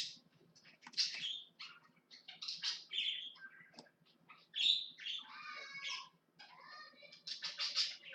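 A small bird chirping and chattering in many quick, high bursts.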